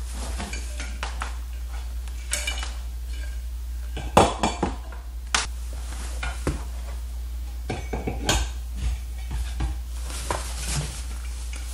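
Black metal lamp-pole tubes knocking and clinking against each other, the heavy metal base and the wooden bench as they are handled and the pole is stood on the base. The loudest knock comes about four seconds in, with a steady low hum underneath.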